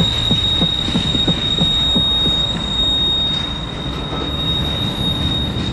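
Train passing on the rail line, its wheels giving a steady high-pitched squeal over a rhythmic clickety-clack of about three clacks a second, the clacks thinning out in the second half.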